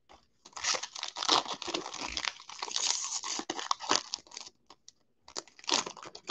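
Foil wrapper of a Panini Absolute football card pack being torn open and crinkled: dense crackling for about four seconds, then a few short crinkles near the end.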